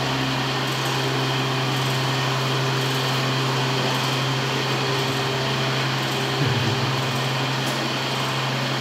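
Electric pedestal fan running: a steady low motor hum with constant airy hiss.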